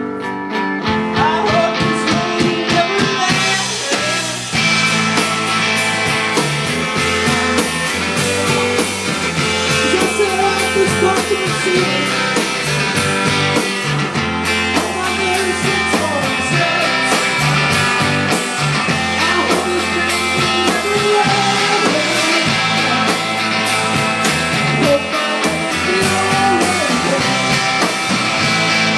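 Rock band playing live: guitar and singing over a steady drum beat.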